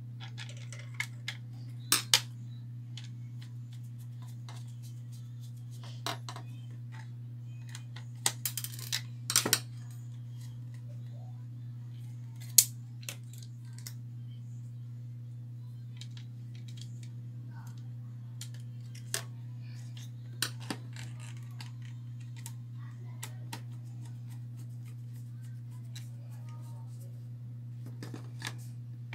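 Scattered clicks and light clatter of a computer motherboard, its metal I/O shield and a screwdriver being handled on a workbench, with one sharper click about halfway through. A steady low hum runs underneath.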